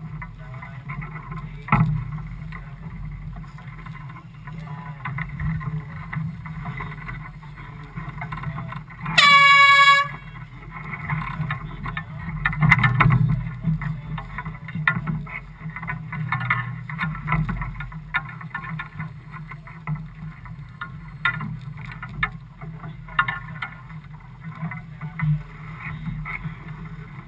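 A single race-committee air horn blast, one steady tone about a second long, sounded about nine seconds in as a signal in the match-racing start sequence. It sounds over a steady low rumble from the committee boat and wind.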